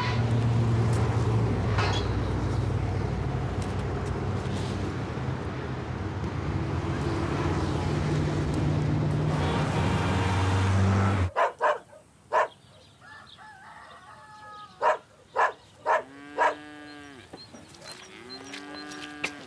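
Road traffic: a steady wash of passing cars with a low engine hum, cutting off abruptly about eleven seconds in. After it comes a quieter stretch with a few sharp knocks and short calls that fall in pitch.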